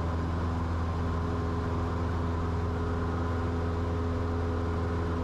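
Cessna 172's piston engine and propeller droning steadily at climb power, heard inside the cockpit.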